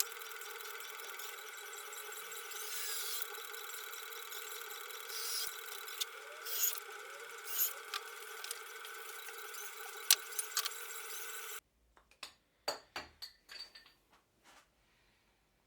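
An electric power tool running steadily as it works wood, with scraping and squealing swells. It cuts off suddenly, and a few separate knocks and clicks follow.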